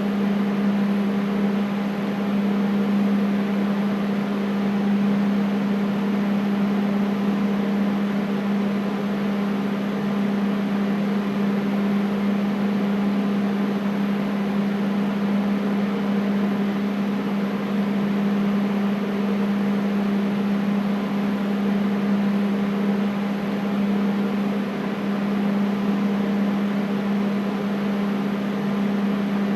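Air conditioner running steadily: a constant low hum with a broad rush of airflow over it, unchanging throughout.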